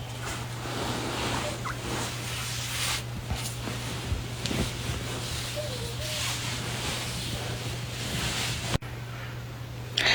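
A person snoring in deep sleep: long, rhythmic snores swelling and fading about every three seconds, with a steady low hum underneath.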